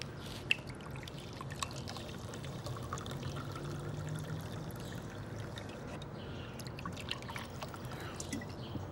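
Apricot soda poured from a bottle into a glass, liquid trickling, with a sharp click about half a second in and a steady low hum underneath.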